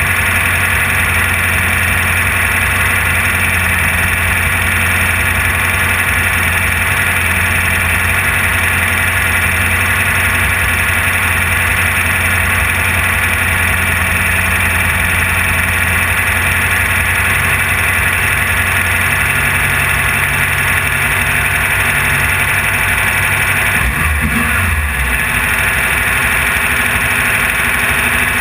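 Air-cooled 1600 cc VW engine of a Class 1600 off-road race buggy, heard from inside the car, running loud and steady under load. Near the end the revs dip briefly and pick up again, as at a lift or gear change.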